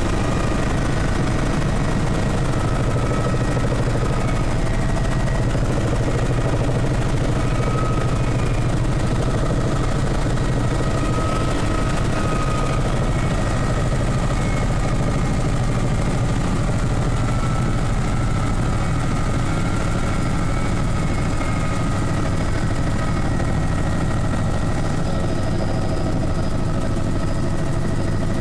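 Helicopter in flight, heard from inside the cabin: a steady loud rumble of rotor and engine with thin high whining tones over it.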